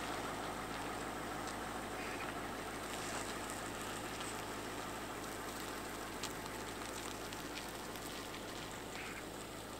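BMW X5 SUV's engine running at low revs as it crawls slowly across an off-road slope, with a few faint clicks, growing slightly fainter as it moves away.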